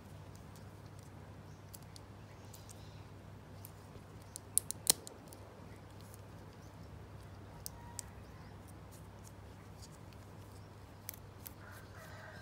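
Small hard plastic model-kit parts clicking and tapping in gloved hands. There is a quick cluster of three sharp clicks near the middle and scattered lighter ticks, over a faint steady low hum.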